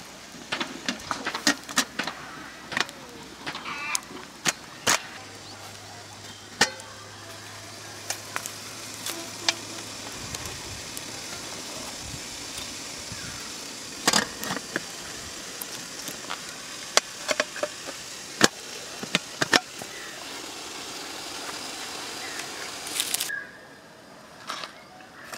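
A wood cooking fire crackling with sharp clicks and snaps, along with metallic clinks from the aluminium pot's lid being handled, over a steady hiss that stops abruptly near the end.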